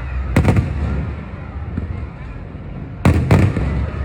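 Aerial fireworks bursting: two quick pairs of sharp bangs, one about half a second in and another about three seconds in, over the continuous low rumble of the display.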